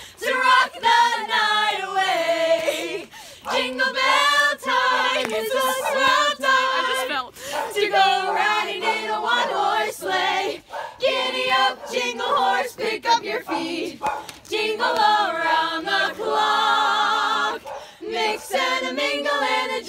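A small group of carolers singing a Christmas carol together, unaccompanied, in phrases with short breaths between them.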